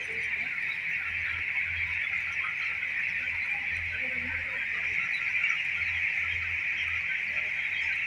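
A large flock of 18-day-old broiler chickens peeping together in a dense, continuous high chatter, thousands of voices overlapping.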